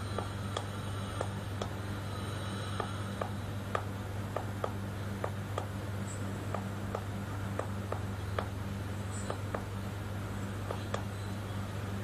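Pigeon pecking at a wooden board: sharp, irregular taps about two a second, over a steady low hum.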